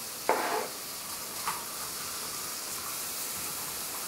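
Chopped onion and garlic sizzling steadily in a hot frying pan as they brown, with one spatula scrape near the start and a light click about a second and a half in.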